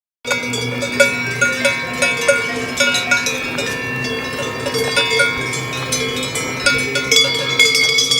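Several cowbells worn by cows clanking irregularly and overlapping, each ringing on at its own pitch. The sound begins abruptly just after the start.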